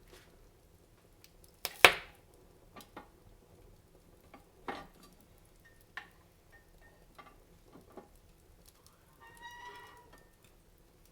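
Wood fire in a fireplace crackling: irregular sharp pops, one loud pop about two seconds in and fainter ones after, with a brief whistling hiss near the end.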